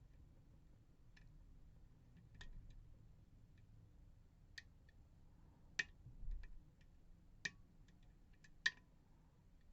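Lock picks working the pins of an Assa D12 lock: scattered sharp metallic clicks a second or so apart, with a short low bump from the lock being handled about six seconds in.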